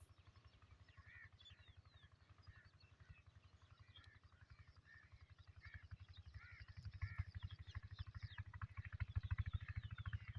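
Faint chorus of many small birds chirping, short calls overlapping throughout, over a low rapid pulsing rumble that grows louder in the second half.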